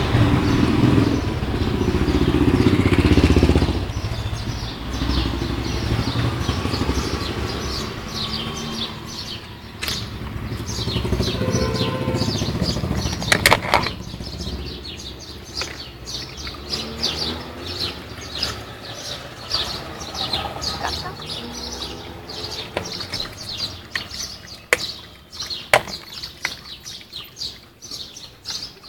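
A motor vehicle rumbling past for the first few seconds, then many small birds chirping busily, with a few sharp clicks and knocks.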